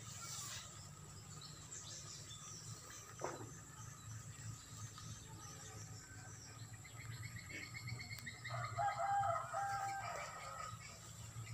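A rooster crows once, starting about eight and a half seconds in and lasting about two seconds, over a steady low hum.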